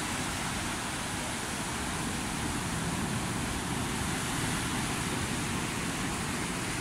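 Ocean surf breaking and washing up the shore, a steady rushing noise.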